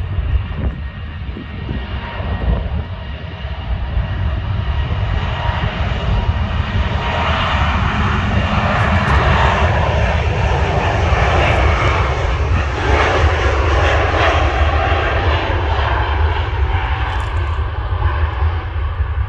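Twin-engine jet airliner on its takeoff roll, engines at takeoff power. The jet noise swells to its loudest in the middle as the plane passes, then fades as it moves off down the runway, over a constant deep rumble.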